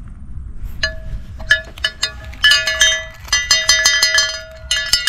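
Handheld Trek cowbell being shaken: a few single clanks about a second in, then fast, rattling ringing in two long bursts with a short break between them.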